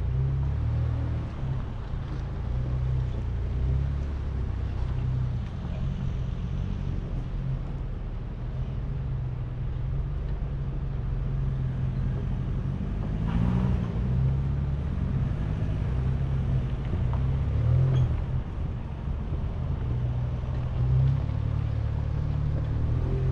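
Chevrolet Colorado ZR2 pickup's engine running at low speed as the truck climbs a dirt trail: a steady low hum whose pitch shifts with the throttle. It swells briefly with a louder rush about 13 seconds in.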